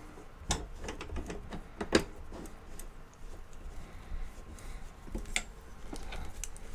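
Light clicks and taps of metal parts as a Crane Plus laptop stand's bar is handled and a thin metal machine bushing is fitted onto it, the spring-loaded piece held down by hand. Three sharper clicks stand out: about half a second in, about two seconds in and about five and a half seconds in.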